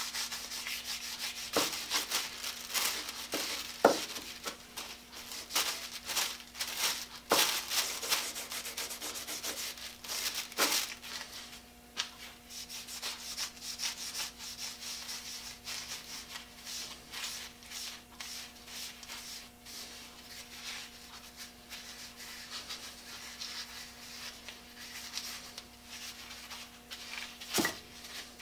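Boiled linseed oil being rubbed by hand into a wooden saw handle: quick back-and-forth rubbing strokes, busiest in the first ten seconds and lighter after, with a few sharp knocks.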